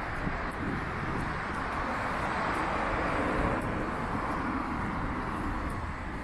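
A car passing on a city street: its noise swells about three seconds in and eases off near the end.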